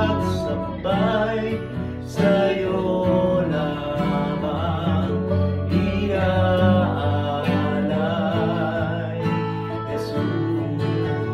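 Acoustic and electric guitars strumming a Tagalog worship song while a man sings the melody, holding some notes with vibrato.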